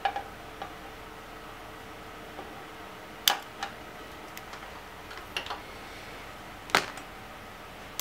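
A handful of sharp clicks and snaps from wiring being worked with a small hand tool: one at the start, two a little over three seconds in, a pair about five and a half seconds in, and the loudest near seven seconds. A faint steady hum sits behind them.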